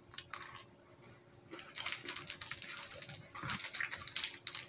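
Faint chewing of a crunchy Pocky biscuit stick, then, from about a second and a half in, the irregular crinkling and rustling of the plastic inner wrapper as the pack is handled to pull out another stick.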